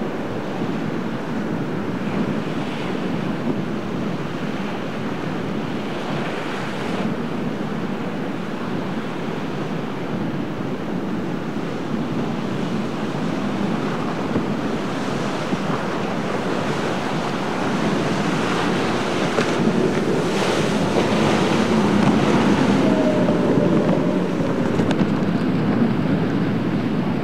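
Rough inlet surf: waves breaking with wind buffeting the microphone, getting louder in the last third.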